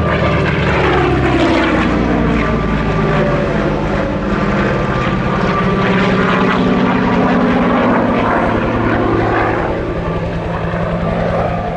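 Goodyear FG-1D Corsair's 18-cylinder Pratt & Whitney R-2800 radial engine at high power on a fast low pass. Its pitch drops as it goes by in the first couple of seconds, then it runs loud and steady and eases a little near the end.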